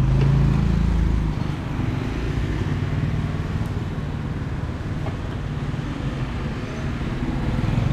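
Motor vehicle engines and road traffic running close by, a steady low hum over road noise that is louder in the first second and again near the end.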